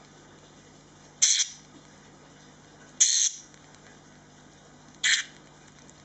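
Young parakeet giving three short, raspy begging calls about two seconds apart while being spoon-fed formula.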